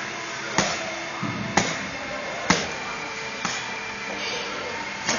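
Boxing gloves smacking into focus mitts during pad work: five sharp hits about a second apart, the third the loudest, over a steady background hum.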